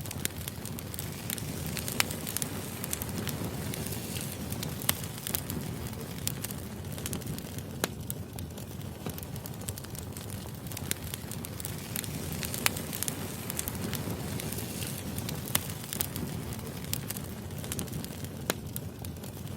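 Wood fire burning: a steady low rush with irregular sharp crackles and pops of the burning logs.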